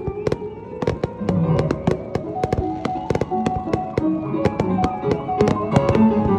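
Fireworks bursting in quick succession, many sharp bangs and crackles, over piano music.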